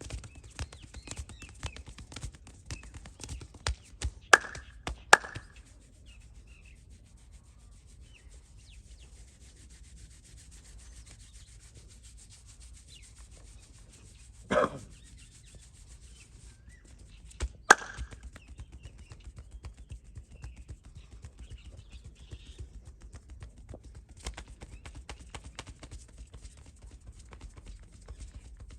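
Massage hands working over a person's head and back. A quick run of taps comes in the first few seconds, followed by steady rubbing of hands on skin and clothing. Three sharp loud knocks land about four, five and eighteen seconds in.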